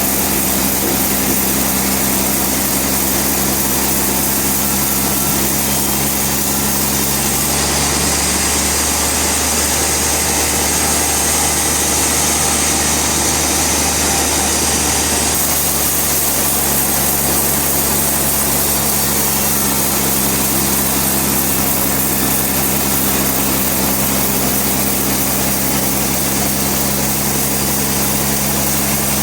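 Bandsaw sawmill machinery running steadily, a constant mechanical drone with a steady hum. About a quarter of the way in its tone shifts for several seconds, then returns to the earlier sound.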